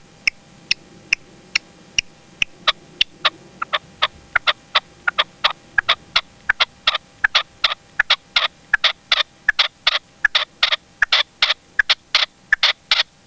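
Red-legged partridge cock calling from a decoy cage: a long run of short, sharp notes, about two a second at first, then faster and louder from about halfway through. This is the decoy's song to draw a wild partridge in.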